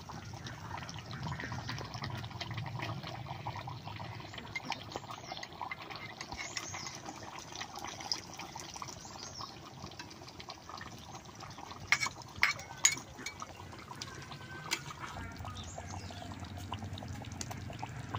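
Sesame chicken curry bubbling in a metal kadai, with a metal ladle stirring through it and knocking against the pan a few times about two-thirds of the way through.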